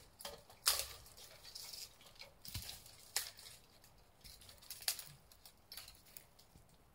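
Irregular light clicks, knocks and rustles from hands-on work building a wooden hunting blind, with a few sharper ticks about a second in, around three seconds in and near five seconds.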